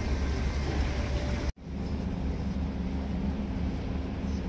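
Outdoor background rumble, steady and low. It breaks off abruptly for an instant about a second and a half in, then resumes with a steady low hum added.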